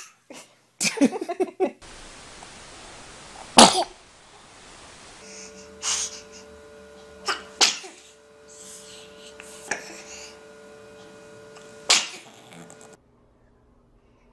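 Young children sneezing: a string of short, sharp sneezes, one every two seconds or so, the loudest about three and a half seconds in.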